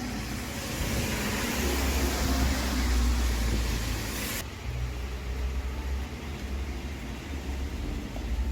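Heavy rain and a passing car on a wet street: a steady hiss over a low rumble. The hiss cuts off abruptly about four and a half seconds in, leaving mostly the rumble.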